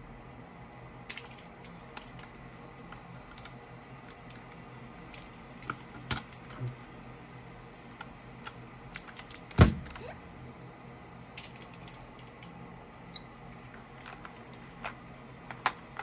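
Scattered, irregular plastic clicks and taps of keycaps being handled on a Keychron K8 Pro mechanical keyboard, with one louder knock a little past halfway.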